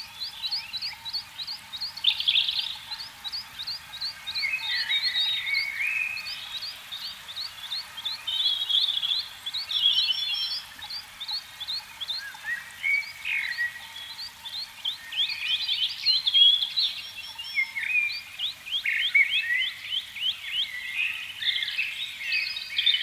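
A chorus of frogs calling: many overlapping trains of short, high, quickly repeated calls.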